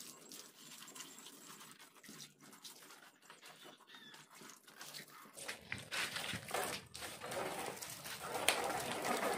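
Garden hose spraying water onto a motorcycle, a dense splashing hiss that starts about five seconds in and grows louder; before it, only faint small handling sounds.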